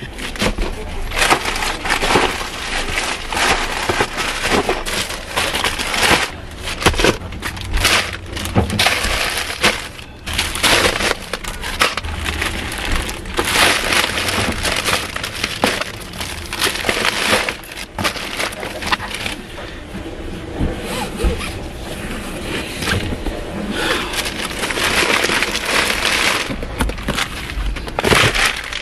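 Delivery packages being handled and loaded into a car: continuous rustling and crinkling with frequent irregular knocks.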